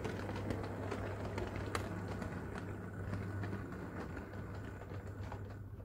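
HO scale model train, an Amtrak diesel locomotive with Superliner cars, running along the track. There is a steady hum and many small clicks as the wheels pass rail joints and points.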